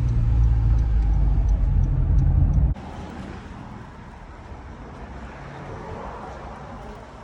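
Low rumble of a car driving, heard from inside the cabin. Almost three seconds in it cuts off abruptly to a quieter, even hiss.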